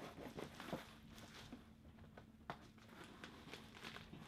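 Faint rustling and scattered light taps of hands reaching around inside a cardboard shipping box.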